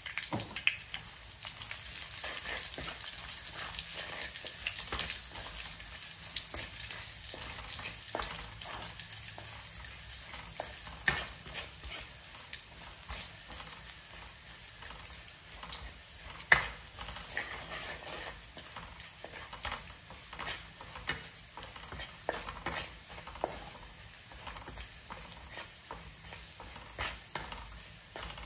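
Minced garlic frying in oil in a wok, with a steady high sizzle. A wooden spatula stirs it, scraping and knocking against the pan, with a couple of sharper knocks about eleven and sixteen seconds in.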